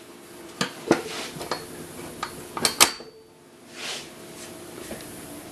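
Metal legs of a Coleman pop-up camper folding table being swung on their pivot brackets, giving a run of sharp metal clicks and clanks over the first three seconds. A soft scrape follows about four seconds in.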